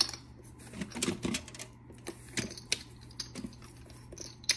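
Plastic Connect Four discs clicking and clattering as they are handled and counted, in irregular light clicks.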